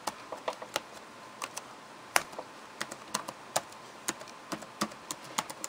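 Keys being typed on a computer keyboard: irregular single key clicks, a few a second, entering a username and password.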